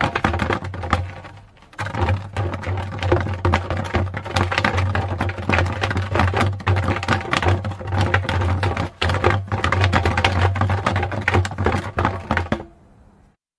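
Wooden barrel dragged over a sidewalk: a continuous low rumble with dense knocking and scraping of the wood. It dips briefly a little under two seconds in and stops shortly before the end.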